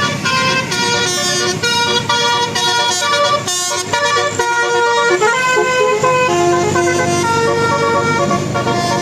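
Tourist bus's telolet basuri musical horn playing a melody, steady notes stepping from one pitch to the next, over the bus's low engine rumble. A short hiss cuts in about three and a half seconds in.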